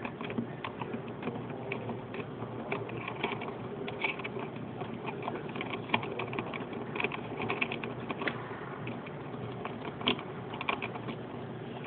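Hahn's macaw's beak picking and chewing at the plastic and metal parts of a Losi 22 RC buggy, making a steady run of small, irregular clicks and taps.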